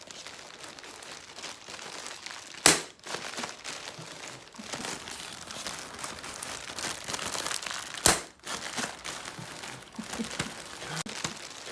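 Packing material crinkling and rustling as hands dig through a well-wrapped parcel, with two sharp, loud rips or snaps, about three seconds in and again about eight seconds in.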